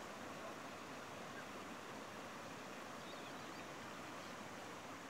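Faint, steady outdoor river ambience: an even wash like flowing water, with a few faint high chirps about three seconds in.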